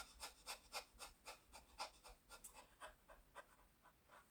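Faint stomach gurgling: a fairly even run of soft pops, about four a second, that fades toward the end.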